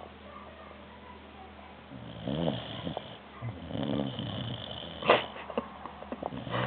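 English springer spaniel puppy snoring, two long pitched snoring breaths starting about two seconds in. A sharp click about five seconds in, then a few softer clicks.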